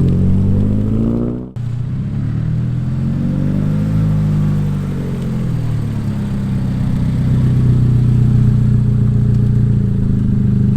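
Car engine on the road: the revs climb, break off abruptly about a second and a half in, climb again and fall away, then hold steady.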